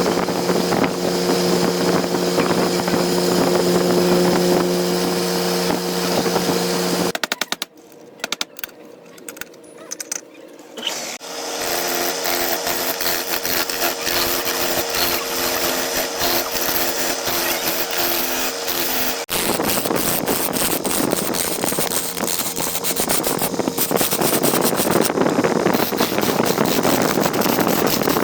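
Woodturning lathe running with a steady motor hum. The hum drops away about seven seconds in and starts again a few seconds later. Past the middle it gives way to a rough, scratchy noise full of rapid ticks.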